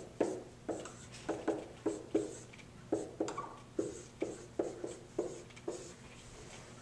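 Dry-erase marker writing on a whiteboard: a run of short, sharp strokes and taps, about two a second, as figures are written out.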